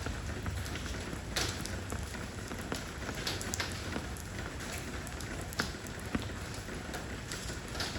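Steady rain falling on stone, with a hiss of rain and scattered louder individual drops ticking against the surface.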